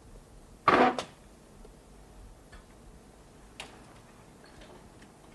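A single short, loud clatter about a second in, followed by a few faint scattered clicks.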